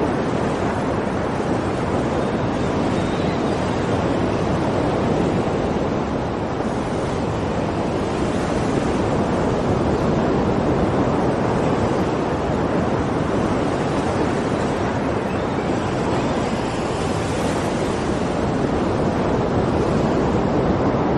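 Sea waves washing onto the shore, a continuous surf noise that swells gently now and then, with some wind.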